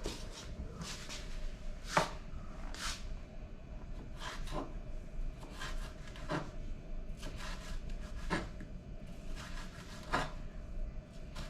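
Knife chopping vegetables on a cutting board: irregular light strokes with heavier knocks on the board every couple of seconds.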